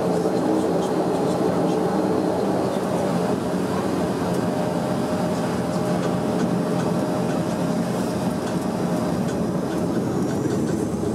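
Bombardier Dash 8-400's Pratt & Whitney PW150A turboprop engines and propellers running at taxi power, heard inside the cabin: a steady drone with several steady propeller tones.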